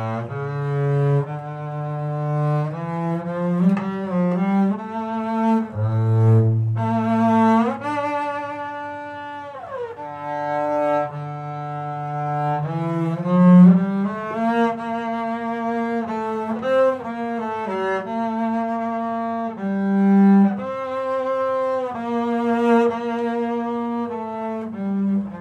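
Solo double bass played with a bow: a slow, singing melody of held notes with vibrato, with sliding shifts between some notes.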